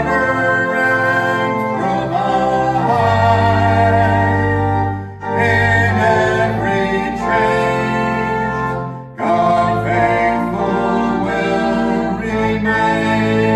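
Church music: a sung hymn over sustained instrumental chords, in phrases with short breaks about five and nine seconds in.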